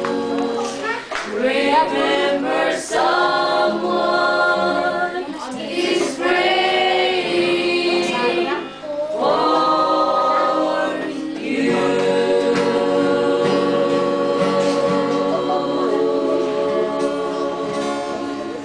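A small group of voices singing a song together to an acoustic guitar, in phrases broken by short breaths, ending on a long held note that fades out near the end.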